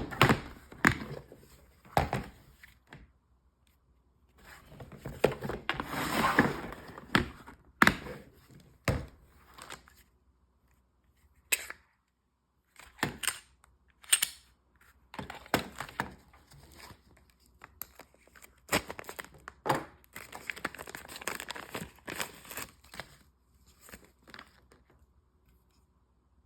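Packaging crinkling and tearing, mixed with a string of sharp clicks and knocks from objects being handled. There are longer rustling stretches about five seconds in and again near twenty seconds.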